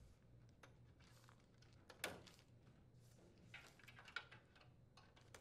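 Near silence with faint handling noise as plastic wire connectors in a dryer's wiring harness are plugged in by hand: one sharp click about two seconds in and a few softer clicks later.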